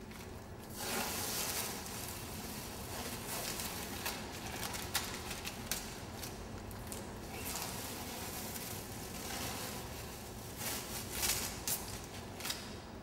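Masking tape being peeled off a painted wall and crumpled, heard as a string of noisy rips and crackles.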